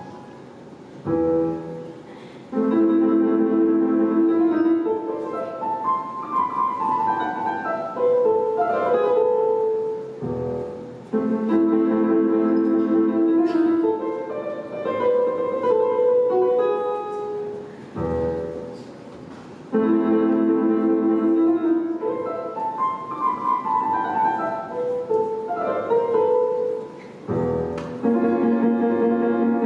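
Solo piano on a digital keyboard: held chords under a falling melody. The phrase repeats about every eight seconds, each time opening with a low bass note.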